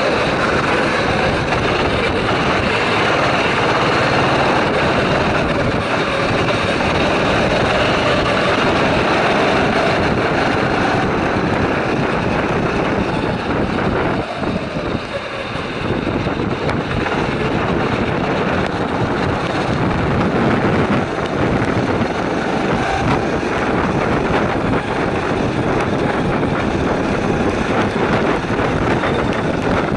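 Go-kart engines running under load, heard from onboard a kart racing in a pack of other karts. The pitch rises and falls with the revs, and the sound dips briefly around the middle as the kart slows, then picks up again.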